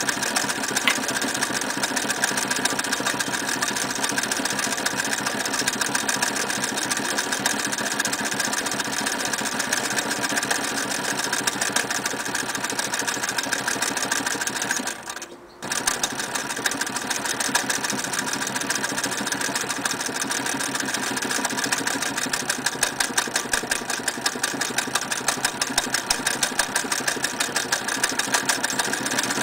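Electric Singer 99K sewing machine running at speed, its needle stitching steadily through a thick leather strap in a fast even rhythm. It stops for under a second about halfway through, then runs on.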